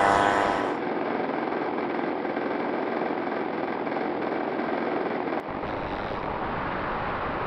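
Briefly the droning of model airplane engines, then a quarter-scale model warplane's small gas engine running as heard from a camera mounted on the model: a steady rough rush of engine and propeller wash over the microphone.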